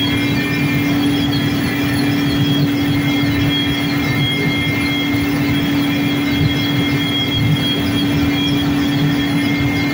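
Military helicopter in flight heard from inside its cabin: a loud, steady drone of engines and rotor, with a constant low hum and thin high tones over a dense rumble.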